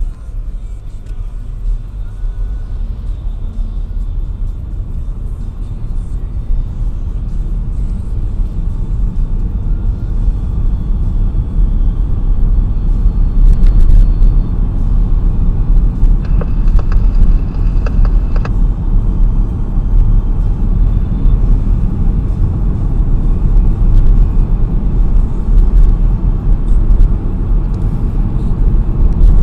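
Road noise heard inside a moving car: a steady low rumble of engine and tyres on wet, slushy pavement. It grows louder over the first ten seconds or so, then holds.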